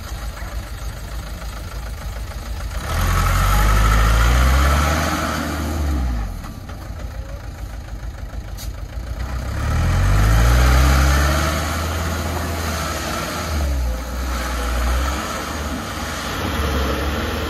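Loaded Hoa Mai light dump truck's diesel engine running rough and low, revving up hard twice as it pulls through soft mud and rubble, each rev rising in pitch and then dropping back.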